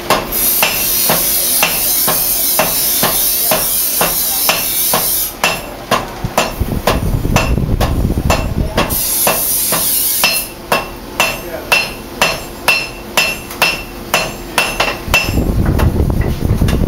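Steady hammering of steel on an anvil, about two blows a second, each with a short metallic ring, as a blade is forged by hand. A high hiss of a grinding wheel against steel runs under the blows for the first five seconds or so and again briefly near nine seconds.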